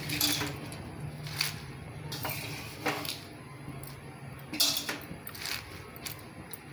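Wet spinach leaves being pressed and turned by hand in a steel kadhai of heating water: soft rustling and squishing, with a scatter of light clicks and knocks against the pan.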